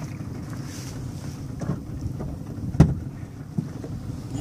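Wind buffeting the microphone over a steady low rumble, with one sharp knock about three seconds in.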